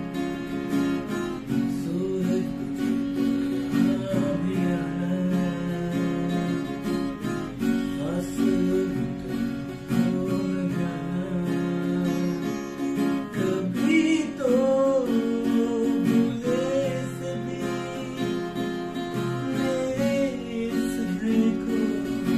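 Acoustic guitar strummed in steady chords, with a man singing a slow, wavering melody over it.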